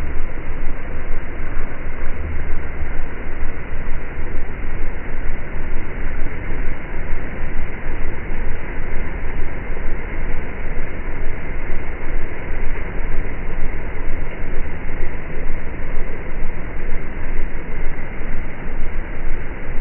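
Rain falling steadily, an even rushing noise with a strong low rumble underneath.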